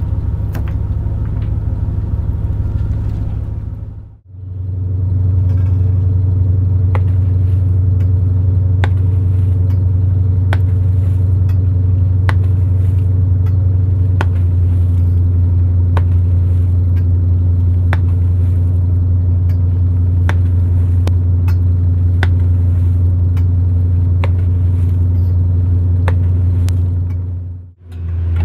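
A purse seiner's engine runs with a steady low drone, with many sharp clicks scattered over it. The sound drops out briefly about four seconds in and again near the end.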